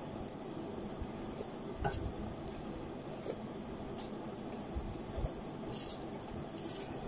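Metal fork and spoon clinking and scraping in a stainless-steel bowl as noodles are stirred and lifted, a few light clinks scattered over a steady low background noise.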